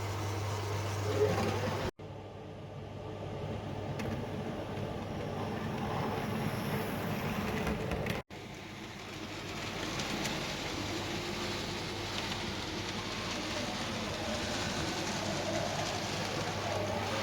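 Model railway train running along the track: a steady motor and wheel rumble with a low hum, broken by two abrupt cuts.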